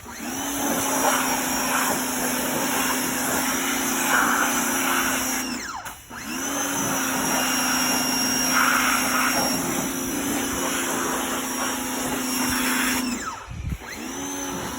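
Ryobi pressure washer running and spraying, its motor humming steadily with water hissing from the nozzle. It cuts out briefly twice as the trigger is released and spins back up each time it is squeezed again.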